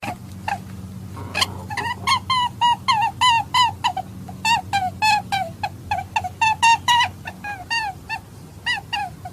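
Hare calling: a rapid series of short, high squeaky calls, each dropping in pitch, about three a second, over a faint low hum.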